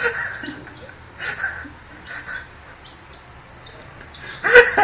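Kitten tussling with a plush toy on a tile floor: scattered short scuffling and scratchy noises, with one louder brief sound near the end.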